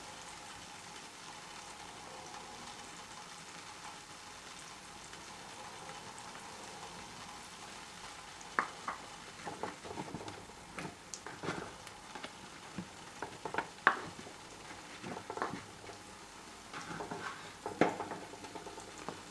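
A spoon stirring beef bone broth in a clay pot, with sharp clicks and knocks against the bones and pot wall and the sloshing of liquid, starting about halfway through. Before that there is only a faint steady hiss.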